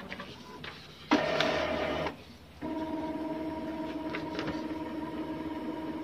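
Epson L3250 inkjet printer running a test print: a few clicks, then a loud second-long whir of the mechanism about a second in, a brief pause, and from about two and a half seconds a steady motor hum with a fixed whine.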